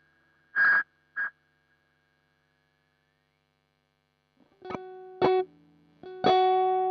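Strat-style electric guitar through a MiMiDi mini delay pedal with all its knobs on full. Two short, loud, high-pitched squeals come about half a second and a second in, the sound of the delay's feedback at full Repeat. Then near silence, and from about 4.5 s three picked notes, the last ringing on and slowly dying away.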